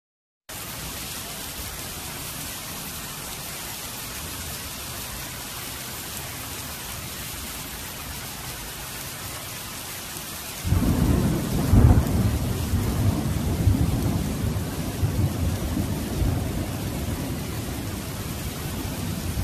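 Heavy rain pouring onto a street, a steady hiss. About ten seconds in, a loud rumble of thunder breaks in, peaks a second later and slowly rolls away under the rain.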